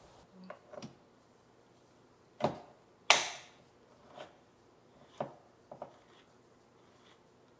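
Handheld manual can opener working on a tin can: a series of sharp metal clicks and clanks, about seven in all, the loudest about three seconds in with a brief ring.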